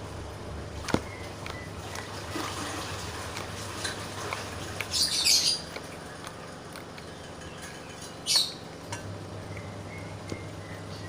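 Slime being squished and stretched by hand, with short sharp squelching pops: a cluster about five seconds in and another near eight seconds, over a steady low hum.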